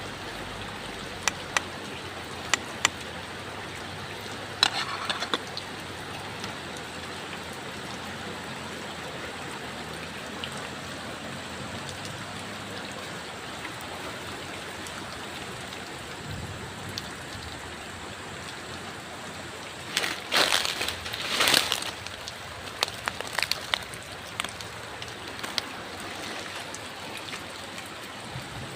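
Steady rain falling, an even hiss throughout, with a few sharp taps in the first few seconds and two louder noisy bursts at about 20 and 21 seconds in.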